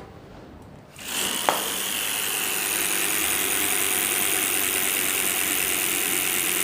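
Homemade plastic-bottle 'exhaust' on a bicycle rattling against the turning wheel, a steady engine-like buzz. It starts about a second in and keeps going.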